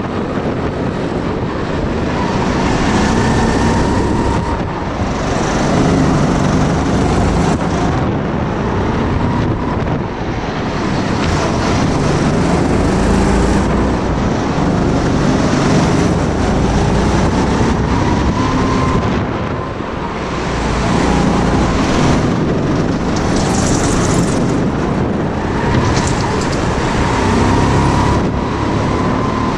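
Go-kart motor running at speed on a lap of an indoor track, its pitch rising and falling as the kart speeds up and slows, with a couple of brief dips in loudness, likely from slowing for corners.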